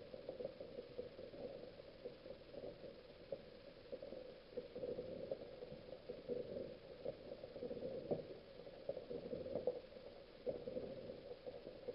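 Distant New Year's fireworks and firecrackers: a dense, muffled crackle of many small bangs, with a couple of sharper reports about eight and nine and a half seconds in.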